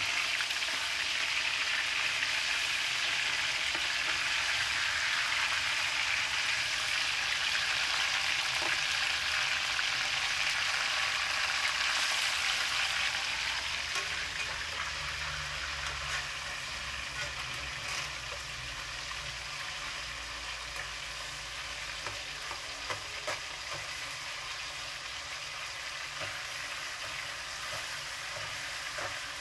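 Chicken pieces frying in hot oil in a stainless steel pan, sizzling steadily. The sizzle is louder at first and settles softer about halfway through, with a few light clicks near the end.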